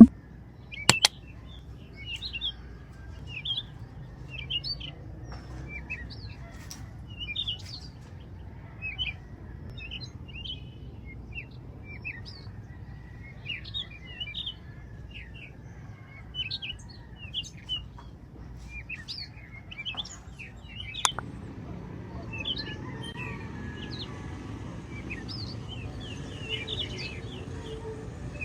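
Birds chirping outdoors: many short, high chirps and twitters, over a faint low background hum. A couple of sharp clicks stand out, one about a second in and one about 21 seconds in.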